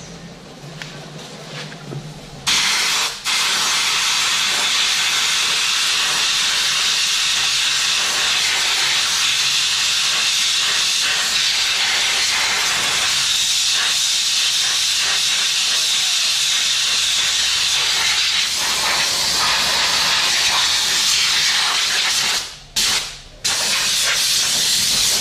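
Pressurized sprayer hissing steadily as it mists diesel over a motorcycle in a diesel wash. It starts a couple of seconds in and cuts out briefly twice near the end.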